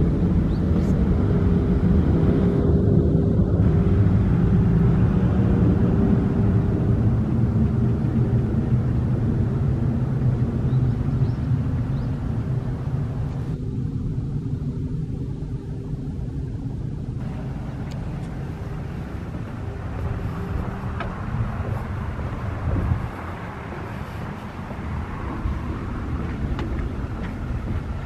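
Jet airliner passing overhead: a steady deep rumble with a faint hum, slowly fading as it flies away.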